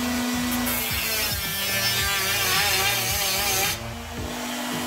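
Handheld rotary tool with a cut-off wheel running and cutting metal. Its pitch wavers from about a second in, and it drops back to a steady hum near the end.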